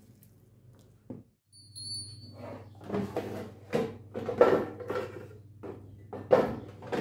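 Ceramic cake dish being set down into the plastic basket of a Tefal air fryer, with a run of irregular clattering knocks as the dish and basket are handled. A short high beep sounds about two seconds in.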